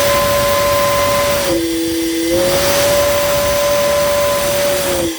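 Antique Sinker Davis steam whistle blowing on about 60 pounds of boiler pressure: a loud, steady whistle tone over a rush of steam, with a lower second tone sounding with it briefly about halfway through and again near the end. The whistle cuts off sharply at the end.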